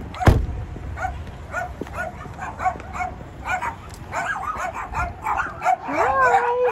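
Dog barking over and over in short, high yaps, about two to three a second, after a sharp thump just after the start. Near the end a long, wavering, pitched cry joins in.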